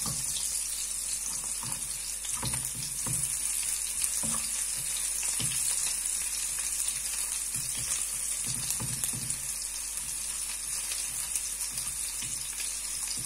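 Chopped garlic sizzling steadily as it fries in oil in a non-stick frying pan, with short scrapes of a silicone spatula stirring it every second or so.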